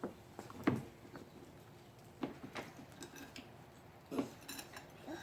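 Scattered light knocks and clicks of hard objects being handled, about half a dozen spread irregularly, the sharpest a little under a second in.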